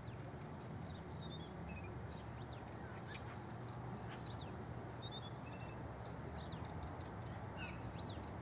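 Small songbirds chirping and singing short, quick falling phrases, several times over, against a steady low background rumble.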